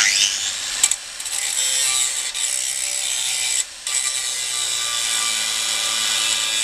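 Angle grinder starting up with a quickly rising whine, then grinding a rusted bolt stub flush on a cast iron stove top in a steady, high, hissing screech. The grinding dips briefly just under a second in and again just under four seconds in.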